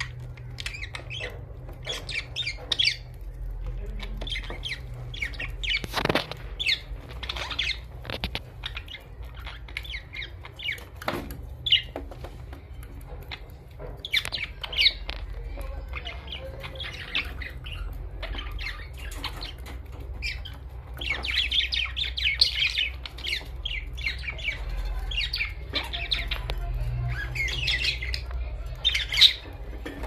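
A courting pair of yellow budgerigars chattering: a steady run of short chirps, squeaks and squawks, thickening into a dense stretch of warbling about two-thirds through. A few sharp clicks and a low hum sit underneath.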